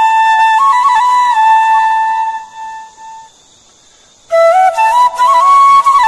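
Background music: a flute playing a slow melody, which breaks off about halfway through for roughly a second and then starts again.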